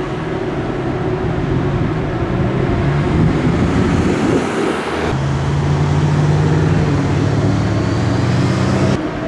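Road traffic: cars and motorcycles driving past with their engines running. About five seconds in the sound changes abruptly to a steadier engine hum.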